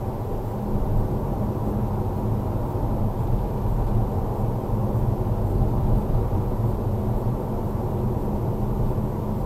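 Steady low rumble of a car driving along a road, engine and tyre noise heard from inside the cabin by the dashcam's microphone.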